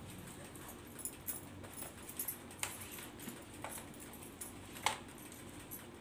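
Faint rustling of a cotton khaki uniform being unfolded and handled, with scattered light clicks, the sharpest about five seconds in.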